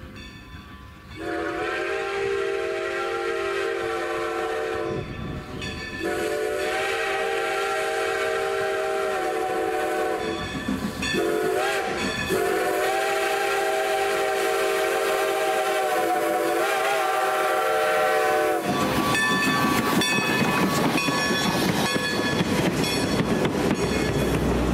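Strasburg Rail Road No. 90, a 2-10-0 Decapod steam locomotive, sounding its chime steam whistle in the grade-crossing signal: two long blasts, a short one and a final long one. Then the engine and its passenger coaches roll past, with wheels clicking over the rail joints.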